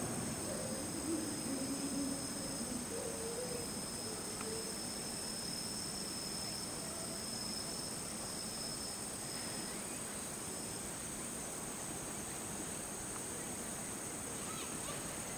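Steady, high-pitched chorus of singing insects, several unbroken tones at once; one of the tones stops about ten seconds in. Faint distant voices murmur during the first few seconds.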